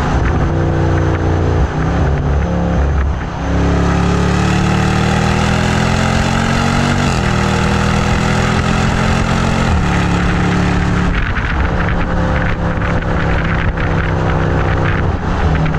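Exhaust of a 2025 Land Rover Defender 110's supercharged 5.0-litre V8, heard at the twin tailpipes under hard acceleration. The engine climbs in pitch and drops sharply at upshifts about seven and ten seconds in, then settles lower with crackling from the exhaust before pulling up again near the end.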